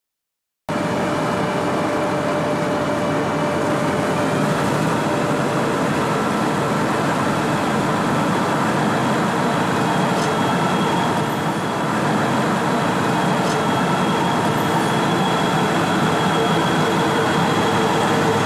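Large cold milling machine running steadily at work: a dense, even machine noise that cuts in suddenly about a second in.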